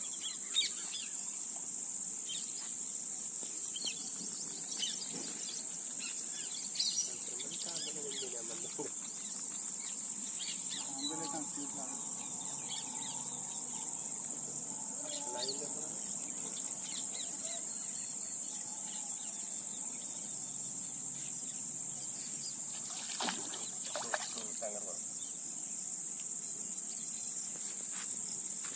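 Steady high-pitched insect chorus, a continuous shrill trilling of crickets or similar insects, with faint voices in the background at times.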